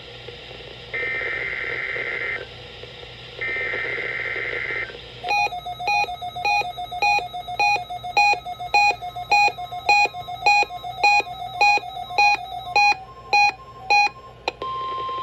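NOAA Weather Radio EAS/SAME header data: two buzzy digital bursts about a second and a half long, part of a Required Weekly Test. Then come a long run of evenly spaced electronic beeps, about two a second, trailing off into a few irregular ones, and a steady tone that starts just before the end.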